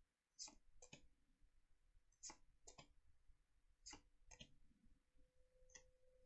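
Faint soft clicks in pairs, about one pair every second and a half to two seconds: Pokémon trading cards being flicked through one by one in the hand.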